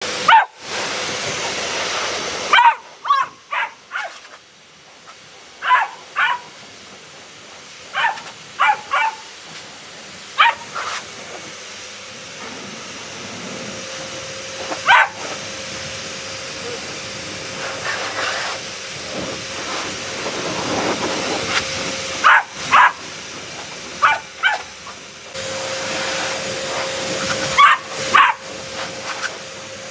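Beagle barking in short, sharp clusters over and over, protesting being blown dry, over the steady rushing hiss of a pet grooming blower dryer. The hiss is loudest at the start, drops after about two seconds and slowly builds again, with a faint steady whine joining about halfway through.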